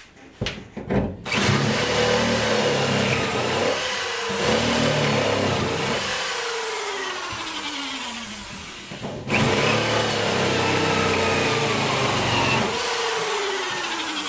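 Corded electric drill boring through the truck's sheet metal and insulation: a few knocks as the bit is set, then the motor spins up and runs under load before slowing with a falling whine. It is triggered again about nine seconds in and runs until it is released near the end, winding down.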